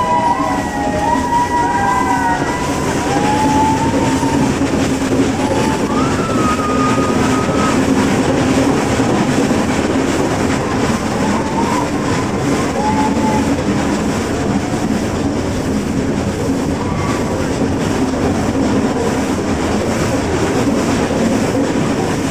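Nilgiri Mountain Railway toy train running, heard from on board: a steady rumble and clatter of the coaches on the track. A few brief high-pitched tones come and go in the first few seconds.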